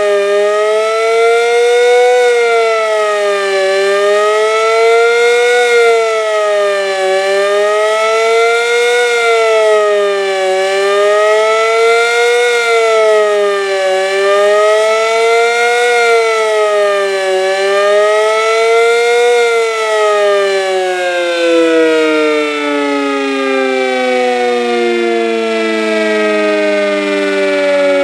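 Decot Red Arrow Model 12 siren wailing, its pitch rising and falling about every three and a half seconds. About twenty seconds in, the cycling stops and the pitch falls steadily as the siren winds down.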